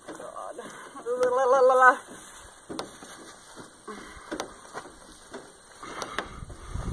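A woman's voice gives one drawn-out, high-pitched, wavering wordless sound about a second in, amid scattered clicks and rustles. Near the end comes rumbling and rustling as her gloved hand handles the camera.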